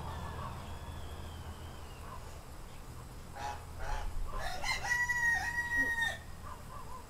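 A rooster crowing once, about five seconds in: a long held call of over a second with a brief dip in the middle, after a few fainter short calls.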